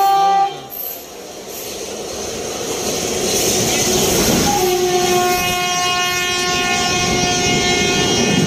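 Train horn, a steady multi-note blast, cuts off about half a second in. The rumble of a passing train's wheels on the rails then builds, and about four and a half seconds in the horn sounds again and holds as an electric locomotive and its coaches run past on the next track.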